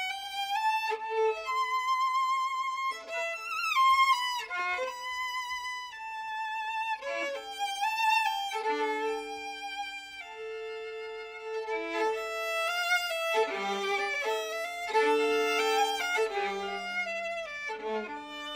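Modern four-string Kazakh kobyz, bowed and played upright, playing a slow melody with vibrato over grand piano accompaniment.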